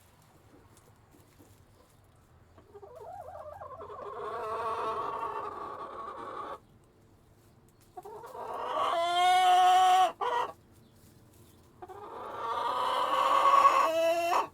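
Rooster crowing three times, each a long drawn-out call of a few seconds, with short pauses between them.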